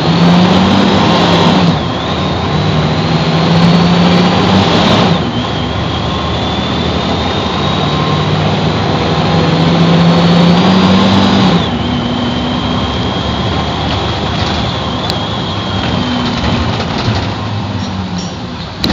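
Mercedes-Benz OF-1724 bus's OM 926 LA six-cylinder turbo-diesel engine accelerating up through the gears. The engine note and a high whine rise with engine speed, then drop at three gear changes about 2, 5 and 12 seconds in. After that it runs steadily, easing off slightly near the end.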